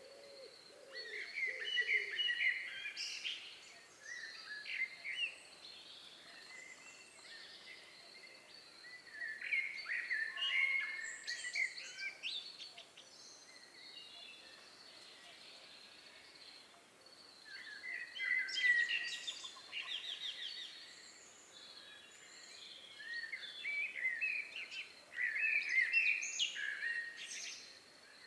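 Songbird singing in four separate runs of quick, varied chirping phrases, each a few seconds long, with pauses between them. A faint steady high hiss lies underneath.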